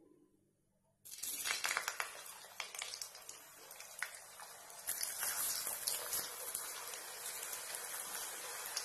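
Raw, freezer-chilled potato sticks frying in hot oil in a kadhai: a dense sizzle with many small crackles and pops that starts suddenly about a second in as the fries go into the oil.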